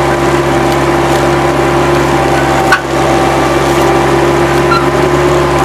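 Bobcat 763 skid-steer loader running steadily while spreading dirt, a loud engine drone with a constant whine above it. A single sharp knock about halfway through.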